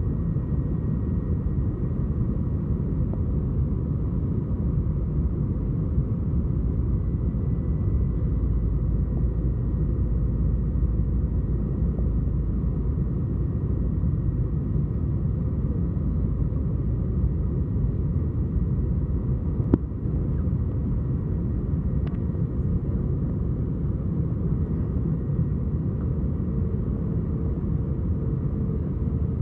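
Airbus A321 cabin noise on final approach: a steady low rumble of engines and airflow with a faint steady whine over it. A single sharp click about twenty seconds in.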